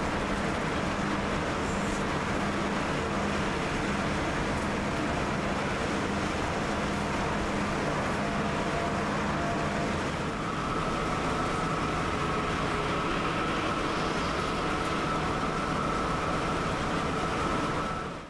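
Steady engine and road noise inside an intercity coach cabin cruising at highway speed. A thin steady whine joins about halfway through, and the sound cuts off suddenly at the end.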